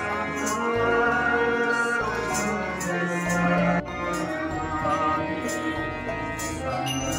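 Music with a sung melody over sustained instrumental tones and a steady percussion beat, with a sudden break about four seconds in.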